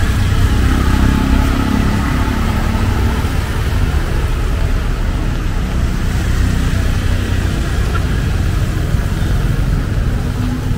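Street traffic on a wet road: cars and motorbikes passing with a steady rumble and tyre hiss. An engine note stands out over the first few seconds.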